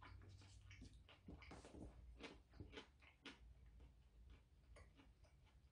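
Near silence with faint, irregular clicks of chewing, the mouth sounds of a man eating, densest in the first few seconds and then sparser.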